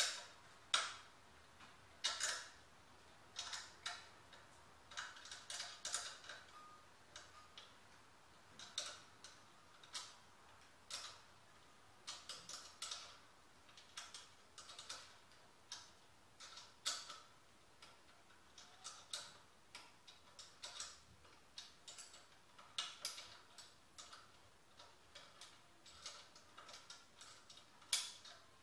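Hand tools and small metal parts clicking and tapping on a mini bike's engine and frame as it is being stripped, in scattered sharp clicks, one or two a second, some louder than others.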